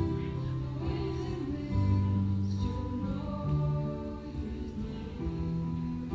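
Live worship band playing a slow song: a woman singing over bass guitar, keyboard, acoustic guitar and drums, with held notes and soft cymbal washes.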